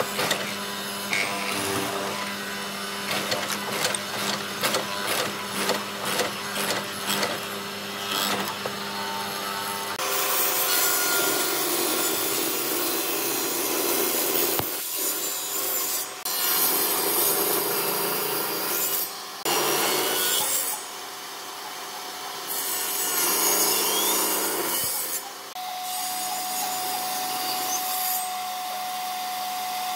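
A hollow-chisel mortiser runs with a steady hum while its chisel plunges into the wood about twice a second. About ten seconds in, a Bosch table saw takes over, ripping wood in several passes with brief breaks between cuts, and near the end the blade spins with a steady whine.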